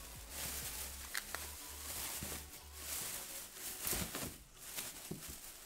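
A clear plastic bag crinkling and rustling as hands rummage in it and lift it in a cardboard box, with a few sharper crackles about a second in and again near four seconds.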